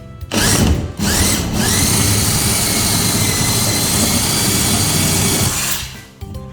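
Power drill boring the piping hole through a wall for a room air conditioner. A short burst first, then about a second in the motor spins up and runs steadily under load for about five seconds before stopping.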